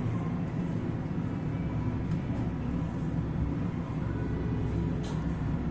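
Steady low background rumble, over which a plastic spatula stirs and scrapes a dry flour mixture in a stainless steel bowl, with a few light taps about five seconds in.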